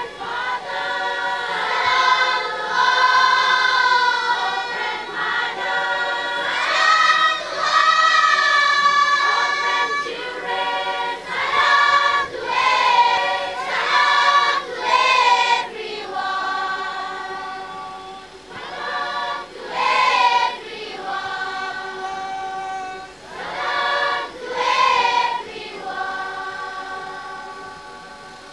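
A large massed choir of schoolchildren singing together in long phrases of held notes, the singing growing quieter near the end.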